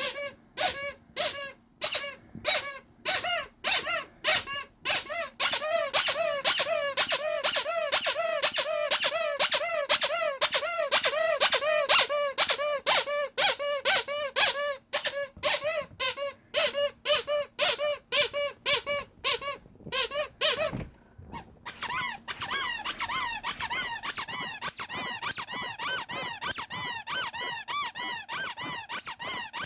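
Vintage Ledraplastic rubber squeak toys squeezed over and over, each squeeze giving a squeak that rises and falls in pitch. At first there are about two squeaks a second, then they come fast and nearly unbroken. After a short pause about 21 seconds in, a higher-pitched squeaking carries on just as fast.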